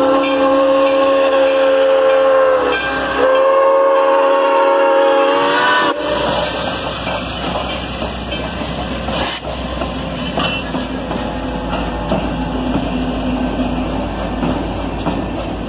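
Steam whistle of Grand Canyon Railway's 2-8-2 steam locomotive No. 4960 blowing a long chord, dipping in pitch about three seconds in and sliding up before cutting off about six seconds in. Then the locomotive and train roll past with a steady rumble and wheel clatter.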